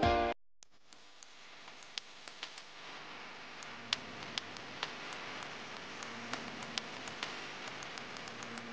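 Violin background music cuts off right at the start, leaving the faint hiss of a bumper-car floor with about a dozen scattered light clicks and knocks.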